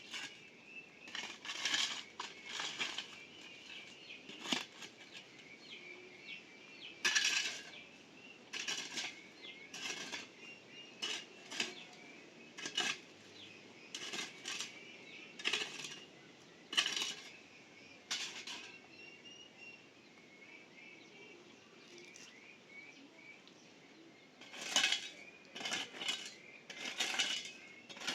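Irregular short bursts of rustling and clinking from hand work, coming every second or so, with a quieter stretch in the second half; faint bird chirping continues underneath.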